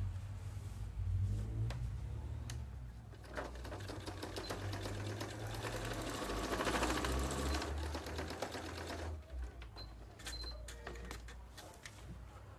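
Domestic electric sewing machine stitching a short seam across the corner of a fabric bag. It runs steadily for about six seconds, starting a few seconds in. A few separate clicks come before and after the stitching.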